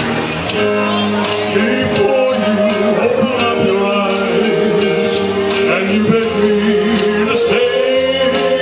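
Slow ballad played by a band over steady held chords, with a sung vocal line gliding between long notes and light regular percussion ticks.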